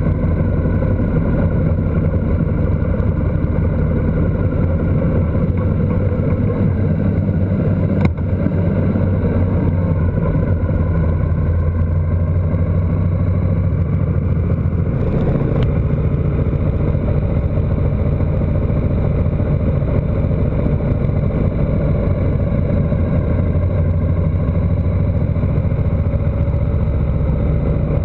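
A motorcycle engine runs steadily at cruising speed, with wind and road rush on the mounted camera's microphone. A single sharp click comes about eight seconds in.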